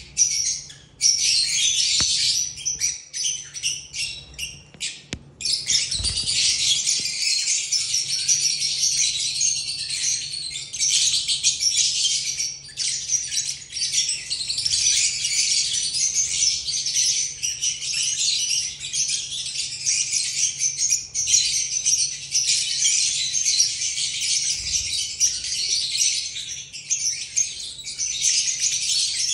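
Lovebirds chattering: a dense, continuous stream of high-pitched chirps and squeaks, choppy and broken for the first few seconds, then unbroken.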